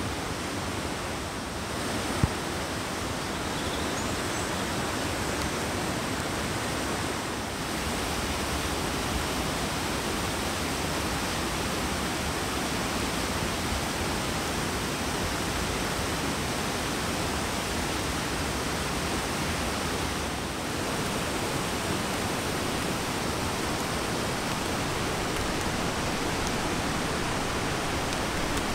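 Whitewater creek rushing over boulders: a steady, even rush of water. One brief click about two seconds in.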